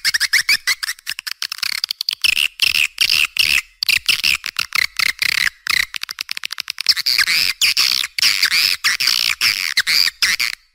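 Swiftlets twittering in a dense flock: a fast, unbroken stream of high chirps and trills. It is a lure-call recording played to draw swiftlets to a swiftlet house, with nothing below the birds' high range.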